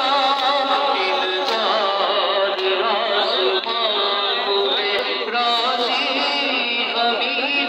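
A noha, a Muharram mourning lament, chanted in a long melodic line with held, wavering notes.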